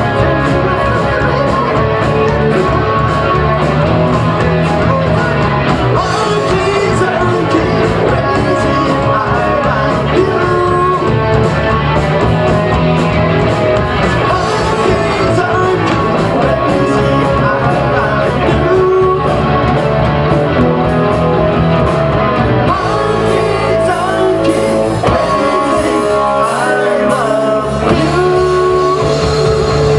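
Live rock band playing a song: electric guitar and drums, with singing.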